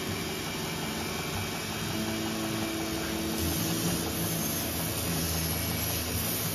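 Belt grinder running steadily, its abrasive belt spinning over the contact wheel; from about two seconds in, the steel blade of a knife forged from leaf spring is held against the belt, adding a louder grinding hiss.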